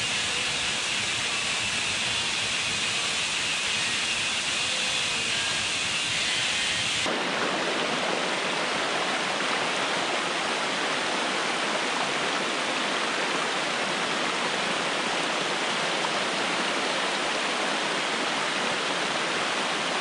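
Steady rush of a tall waterfall pouring down a rock face. About seven seconds in it changes abruptly to the sound of shallow water sliding down a sloping cascade of rock slabs.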